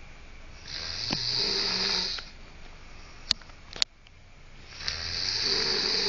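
Snoring: two long, rasping snores about four seconds apart, each with a hissing edge. Two sharp clicks come between them.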